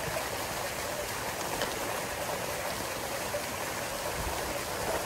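A pond fountain spraying water, the droplets falling back onto the water with a steady rain-like splashing that does not change.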